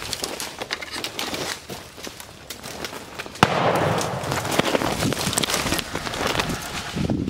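A single gunshot about three and a half seconds in, after soft rustling and clicking. A louder rough, rustling noise follows the shot.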